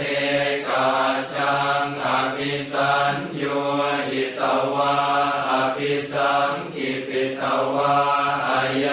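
Thai Buddhist funeral chant: male voices chanting on a steady low monotone, in short, evenly paced phrases.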